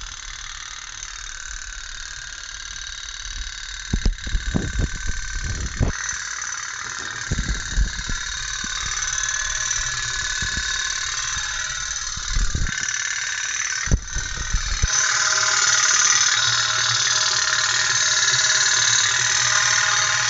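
Tin pop-pop steam toy boat running, its camphor-heated boiler pulsing out a steady, rapid buzzing putter that grows louder about fifteen seconds in. A few dull low knocks come in between.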